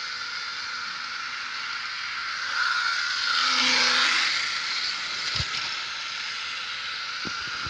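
Model CC 40101 electric locomotive running on its track during a motor test: a steady motor whine with wheel-on-rail noise that swells as it passes close by about three to four seconds in, followed by a couple of sharp clicks.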